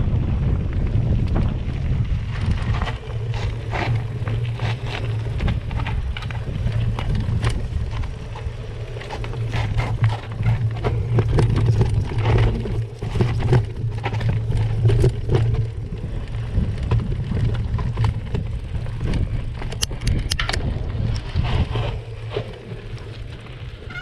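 Mountain bike rolling over a rough dirt trail covered in dead leaves, heard close up from the moving bike: a steady low rumble with frequent sharp clicks and rattles.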